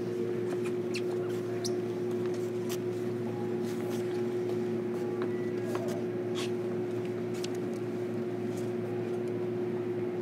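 Inside a JR Kyushu 305 series electric train car: a steady electrical hum from the onboard equipment with faint scattered clicks and creaks. Nothing in the sound rises or falls.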